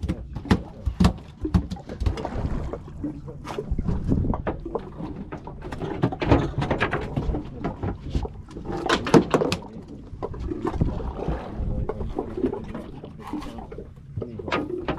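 Sounds aboard a small fishing boat: a constant low rumble with irregular knocks, clicks and clatter.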